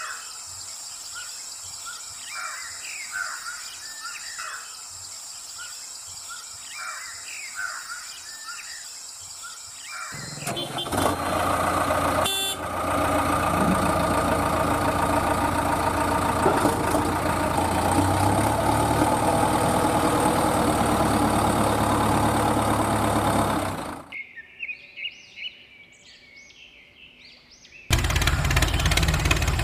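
Birds chirping, then about ten seconds in an engine starts and runs steadily and loudly for some fourteen seconds. It cuts off, birds chirp again briefly, and the engine comes back near the end.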